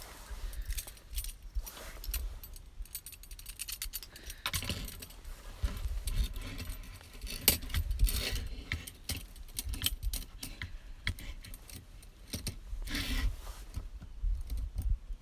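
Small metal objects clinking and rattling: many short, light clicks, busiest in the middle and again near the end.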